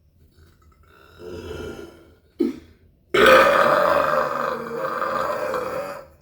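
A man belching: one long, loud burp lasting about three seconds, starting about three seconds in, after a breathy sound and a brief short sound just before it.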